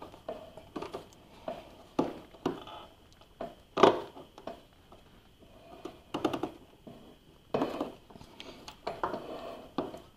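Scattered knocks, clicks and rubbing as hands work a synchronous timing belt onto a pulley on a lawn mower's deck, with one sharper knock about four seconds in.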